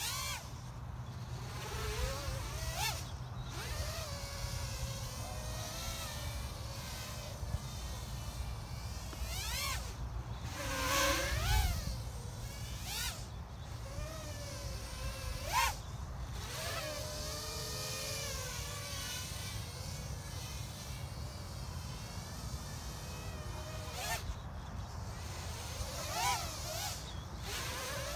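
Small acro quadcopter's 1105 6000KV brushless motors on a 3S battery, spinning 3-inch props: a thin, buzzing whine that rises and falls in pitch with the throttle as it flies. Several brief louder surges mark punches of throttle.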